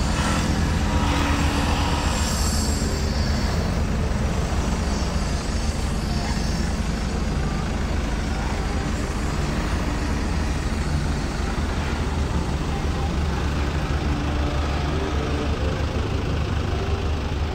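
Motor vehicle running steadily, a constant low engine drone with road noise.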